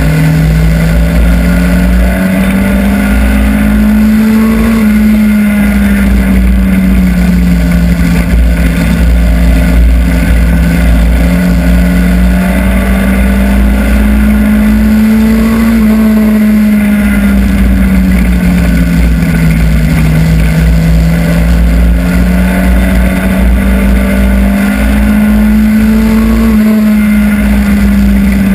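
Hobby stock race car's engine heard from inside the cockpit at racing speed. Its pitch rises and falls in a slow cycle about every eleven seconds as the car laps the oval, over heavy road and wind rumble.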